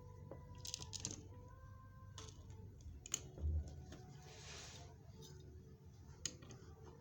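Scattered small clicks and taps of beads and a bead-setting rivet machine being handled, with one dull thump about halfway through.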